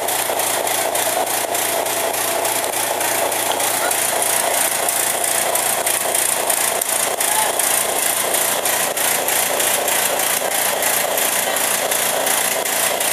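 Fire truck engine running steadily and loudly, with a fast, even rasping pulse.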